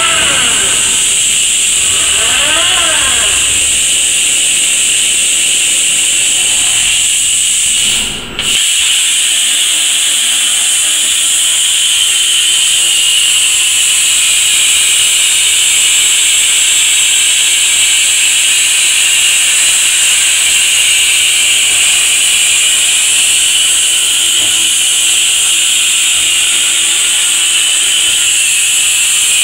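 Robotic plasma torch cutting a steel pipe: a loud, steady, high-pitched hiss. Over the first few seconds, rising and falling motor whines come from the robot's drives as it moves into position. The sound drops out briefly about eight seconds in.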